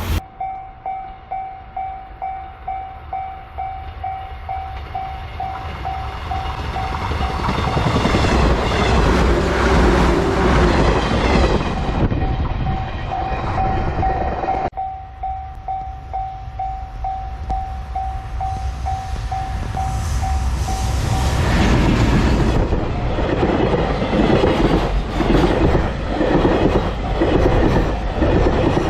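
Railway level-crossing warning bell ringing about twice a second, then a train passing over the crossing with heavy rail noise. After a cut the bell rings again, and another train passes with a regular clatter of wheels over the rail joints.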